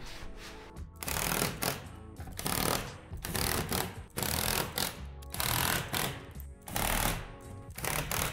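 Cordless driver running in a series of short bursts, about one a second, driving screws into a steel roof truss, over background music.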